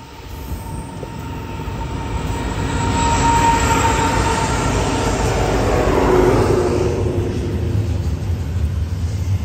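Union Pacific diesel locomotives heading a fast double-stack container train approach and pass: the sound swells over the first few seconds, and a whine drops in pitch as the locomotives go by. Then comes the steady rumble of the container cars rolling past.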